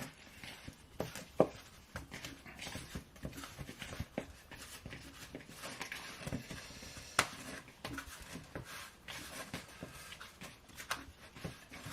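Quiet handling sounds of raw chicken wings being coated in a dry baking-powder spice rub: soft scattered taps, rubs and small clicks, with a couple of sharper ticks.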